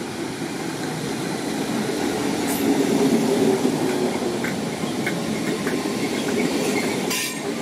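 Merseyrail Class 507 electric multiple unit running in alongside the platform: a steady rumble of wheels on rail, loudest about three seconds in, with a few light clicks.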